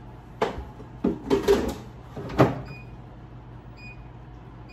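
Air fryer basket scraping and knocking as it is slid into the air fryer, then shutting with a sharp clack about two and a half seconds in. Near the end the air fryer's control panel gives a short beep as it is set.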